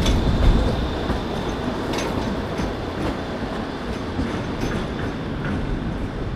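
Electric tram running over wet rails on a curve, moving away: a steady low rumble with a couple of sharp clicks from the wheels crossing rail joints, and a faint high wheel squeal that dies away after about three seconds.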